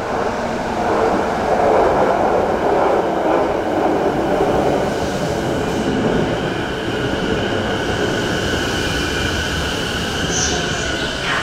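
JR East E233-1000 series electric multiple unit (Mitsubishi IGBT-VVVF) pulling into the platform. The running noise is loud at first and eases as the train slows, and steady high whining tones join about halfway through.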